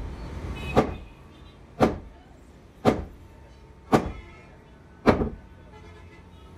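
Five sharp metallic clunks, about one a second, each ringing briefly: a steel piston rod being worked by hand in and out of a hydraulic cylinder tube.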